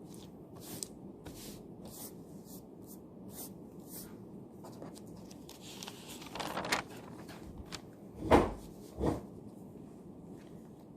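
Pencil writing on paper at a study desk in a quiet room, faint strokes over a steady room hum; a short paper rustle about six seconds in, then two knocks on the desk a little under a second apart.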